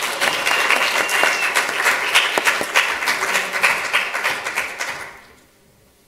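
Audience applauding, many people clapping at once, then dying away about five seconds in.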